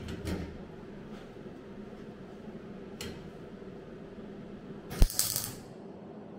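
A short MIG tack weld on car body steel: a sharp crack about five seconds in, then half a second of crackling arc, over a steady hum from the welder. A few light handling clicks come earlier.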